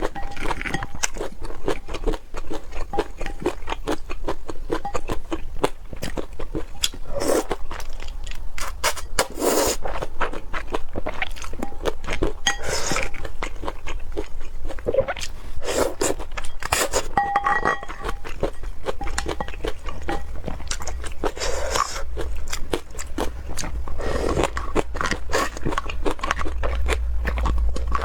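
Close-miked eating sounds: a person chewing and crunching food with wet, crackly mouth clicks, and now and then a clink or scrape of utensils.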